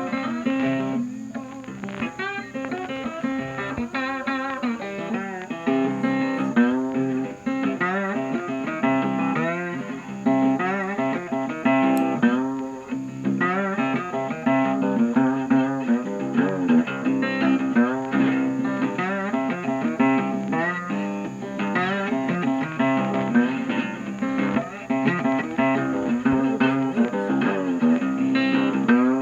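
Background music: a blues track led by plucked and strummed guitar, with notes that bend in pitch.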